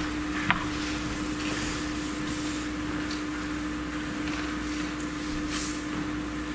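Room tone: a steady hum and hiss, with a faint click about half a second in and a few softer ticks.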